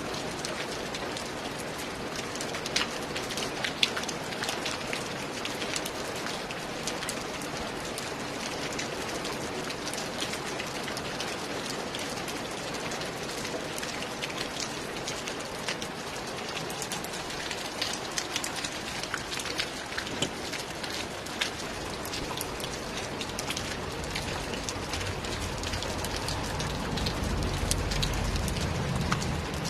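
Steady rain falling, with many individual drops ticking sharply through the even hiss. A low rumble swells near the end.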